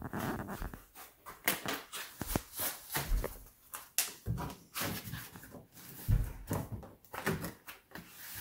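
Closed-cell foam armrest tubes being pressed and fitted onto the rim of a polyethylene folding kayak: irregular rubbing and clicking handling noise, with dull thumps about three and six seconds in.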